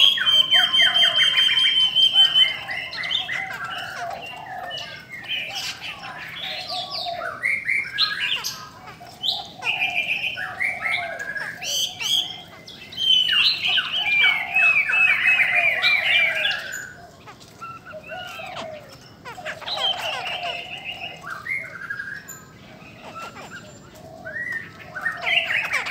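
Caged laughingthrushes singing a loud, varied song of fast repeated notes and trills, broken by shorter calls. The song is loudest at the start and again about halfway through.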